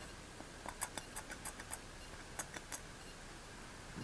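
Faint, irregular light clicks and ticks, as of meter probe tips tapping on component leads and solder joints while checking continuity, clustered through the first three seconds over quiet room tone.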